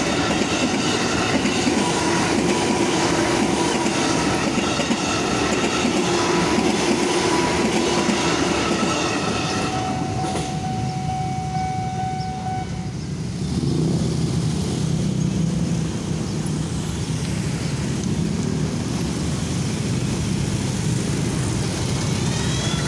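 KRL Commuter Line electric train passing over a level crossing, its wheels clattering on the rails with steady whining tones. About halfway through the train noise gives way to a low engine rumble of road traffic.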